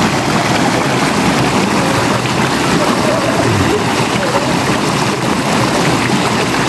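River water rushing over a rock ledge into a pool: a steady, loud rush of white water.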